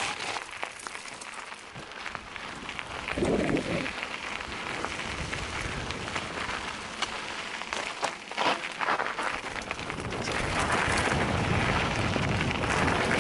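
Mountain bike rolling over a rocky dirt trail: tyres crunching on gravel and loose stones, with a dense patter of small clicks and knocks from the bike jolting over bumps, and a couple of louder thumps.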